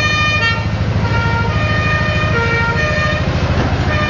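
Fire truck's engine running close by with a pulsing low rumble, while its siren sounds in held tones that step from one pitch to another.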